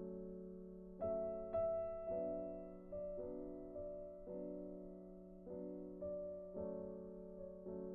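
Soft background piano music: slow, sustained chords, with a new note or chord struck about every half second to a second and each one fading away.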